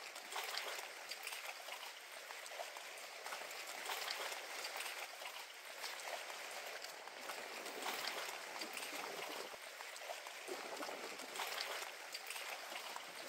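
Shallow lagoon water lapping and splashing softly around the boardwalk's pilings, an irregular wash that swells and eases.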